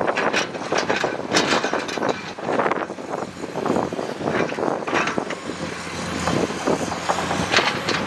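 Dump truck and excavator at work moving dirt: heavy diesel engines running under a dense, irregular clatter and scraping.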